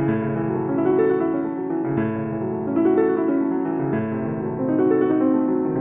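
Background piano music: soft sustained chords with a gentle melody, a new chord about once a second.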